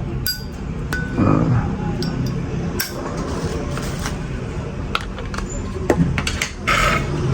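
Small metal Zippo lighters clinking and clicking as they are handled and set down, several separate sharp clicks a second or so apart.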